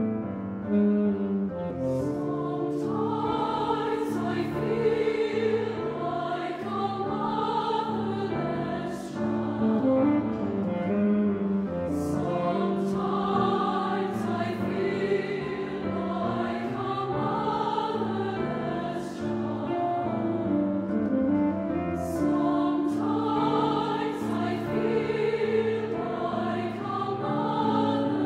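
Mixed concert choir singing a slow classical choral piece in held, sustained phrases.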